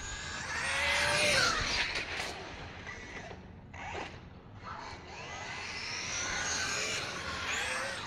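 Team Associated Rival MT10 RC monster truck running past twice, its brushless electric motor and drivetrain whining, the pitch rising and falling with speed. There is a short lull about halfway through.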